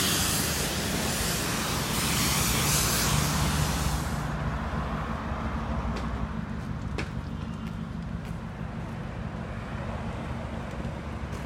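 High-pressure water spraying from a self-service car wash wand: a loud hiss that stops about four seconds in. A steady low hum carries on underneath, with a couple of faint clicks.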